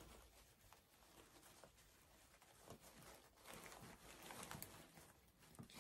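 Faint rustling and light clicks of artificial tulip stems and petals being handled and pushed into a wreath, busier a few seconds in.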